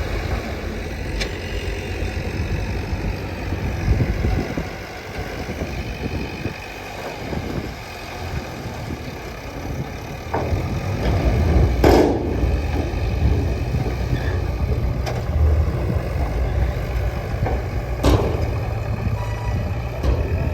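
Heavy diesel earthmoving machinery running. The engine sound eases off for several seconds, then grows louder again from about halfway. Sharp clanks and knocks sound now and then, the loudest near the middle.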